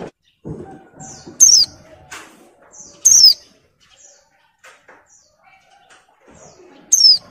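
A white-eye (pleci), a female in breeding condition, giving three loud, sharp high calls that each sweep downward, with softer short chirps between them. There are soft low thumps within the first second and a half.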